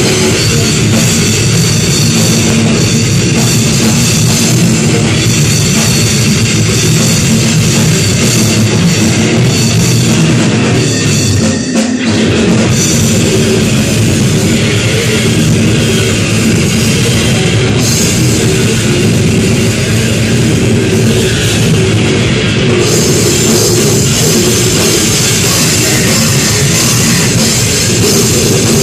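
A live heavy metal band plays at full volume: pounding drum kit, distorted guitar and bass, and a vocalist on the microphone. Heard close up in a small room, it comes across as one loud, dense wall of sound, with a brief break about twelve seconds in.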